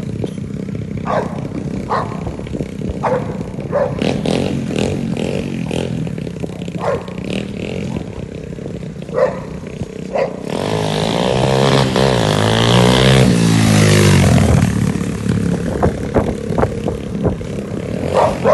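A mini dirt bike's small engine running, with a loud rev rising and falling in pitch from about eleven to fifteen seconds in. A boxer dog barks in short single barks over it, roughly one a second, mostly in the first half and again near the end.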